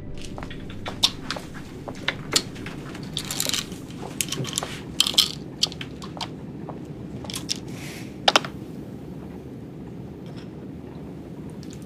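Clicks and short rattles of a small plastic pill bottle being handled and opened, with a sharp double click about eight seconds in as a glass tumbler is set on its coaster. Under it runs the steady low hum of an airliner cabin.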